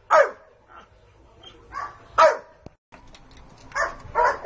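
A dog barking in short, sharp barks, about five or six in all, the loudest just after the start and about two seconds in.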